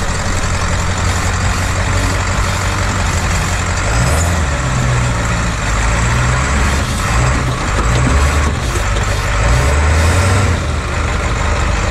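7.3 Powerstroke turbo-diesel V8 running at low speed as the Bronco crawls along a dirt trail, a deep rumble that swells and eases with the throttle, about four seconds in and again near the end, under a steady hiss of tyre and trail noise.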